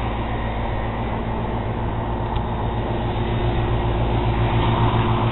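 A steady machine-like hum over a constant rumbling hiss, growing slightly louder toward the end.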